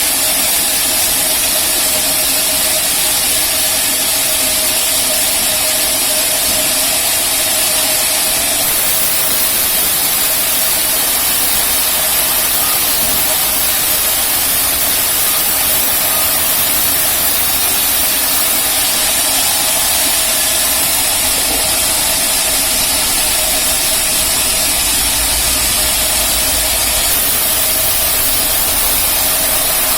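Rail-mounted band sawmill running steadily: a constant machine hum with a strong, even hiss over it.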